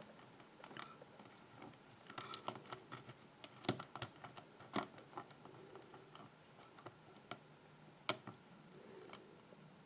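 Faint, irregular metallic clicks and ticks of a hook pick lifting the pins of a six-pin pin-tumbler lock held under tension, with a few sharper clicks near the middle and one near the end.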